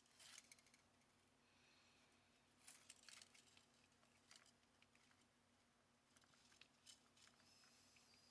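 Near silence with scattered faint clicks and light rattles of small parts and tools being handled during carburetor disassembly, a few at a time, over a faint steady hum.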